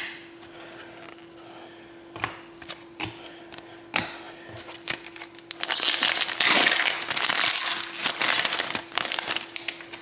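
A few light clicks and taps, then the wrapper of an Upper Deck Artifacts hockey card pack being torn open and crinkled loudly for several seconds near the end.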